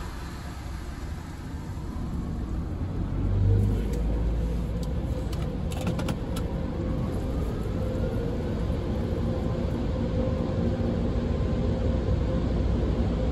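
Belanger Vector in-bay automatic car wash heard from inside the car: the machinery runs with a low rumble that comes in about three and a half seconds in, while a whine slowly rises in pitch and the level builds, as the dryer blowers start up.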